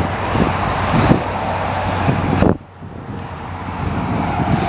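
Wind and rolling noise from a bicycle moving along an asphalt path, with irregular low thumps. The noise drops away sharply about halfway through, then builds again, and a short hiss comes near the end.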